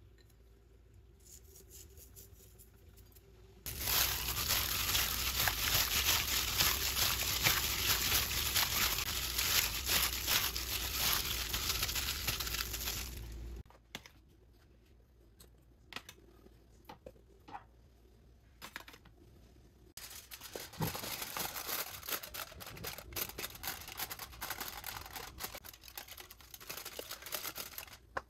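Raw chicken pieces being mixed by hand in a marinade in a glass bowl, a dense crackling for about ten seconds. After a quieter stretch with a few clicks, aluminium foil crinkles as it is pressed over the bowl.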